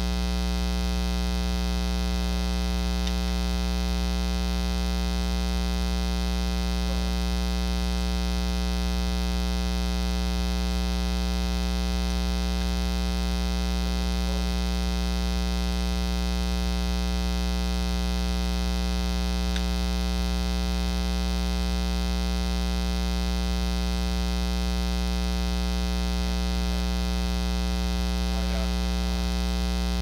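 Steady 60 Hz mains hum with a stack of its overtones, electrical noise induced into the recording by powering the camera from its AC adapter: a ground problem.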